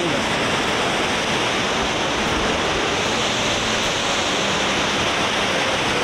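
Steady, loud rush of a tall waterfall, about 70 metres high, in heavy flow, its noise even and unbroken.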